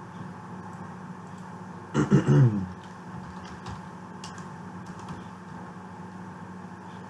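Steady low electrical hum of the recording setup, with a brief murmured vocal sound, short and wordless, about two seconds in, followed by a few faint clicks.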